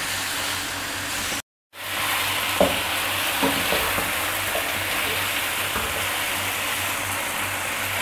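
Marinated chicken pieces sizzling as they fry in hot oil, stirred and turned with a wooden spatula in the pan: the bhuna stage of browning the chicken. The sound cuts out completely for a moment about one and a half seconds in.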